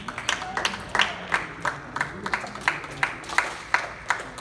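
Spectators clapping after a table tennis point is won, in an even rhythm of about three claps a second that stops near the end, with a short shout near the start.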